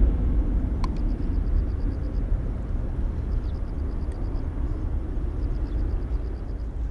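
Jet airliner's engines rumbling as it climbs away after takeoff, a deep steady roar that slowly fades.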